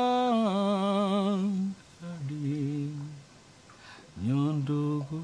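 A man singing a slow, wordless chant in long held notes: a long note that wavers and drops at its end, a shorter, lower phrase about two seconds in, then a rising note near the end.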